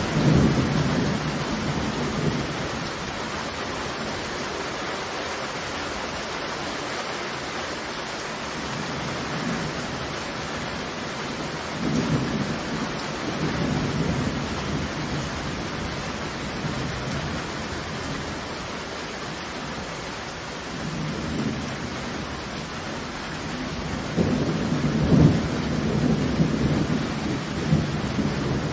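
Thunderstorm: heavy rain falling steadily, with thunder rumbling near the start, again about halfway through, and loudest near the end.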